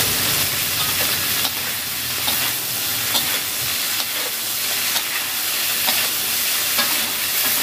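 Winged beans stir-frying in a steel wok: a steady sizzle, with the metal spatula scraping and clicking against the wok now and then as the beans are turned.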